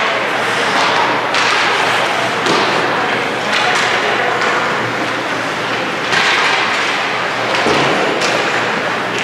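Ice hockey play in a rink: skates scraping on the ice and repeated thuds and clacks of sticks, puck and boards, about one every second or so.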